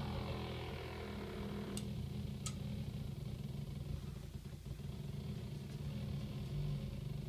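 Electric bass guitar played through a fuzz pedal, holding a low, buzzing distorted drone. About two seconds in there are two sharp clicks and the top end of the tone drops away.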